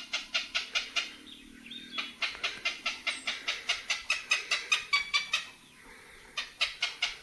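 A heron giving a rapid string of short clucking calls, about six a second, in bouts broken by brief pauses about a second and a half in and near the end, a call the uploader takes for a mating call.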